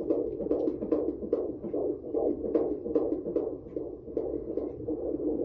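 Fetal heartbeat at 18 weeks, heard through an ultrasound Doppler's speaker: fast, even pulses, about two and a half beats a second.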